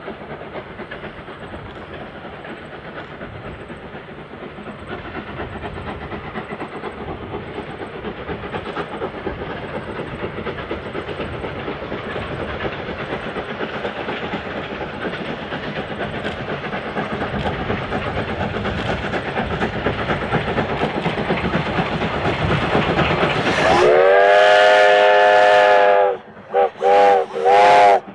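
Steam train working hard up a steep 1 in 52 grade, led by the 1889 Y class 0-6-0 locomotive Y112: exhaust and wheel clatter grow steadily louder as it approaches. About 24 seconds in a steam whistle sounds one long blast, then two shorter ones.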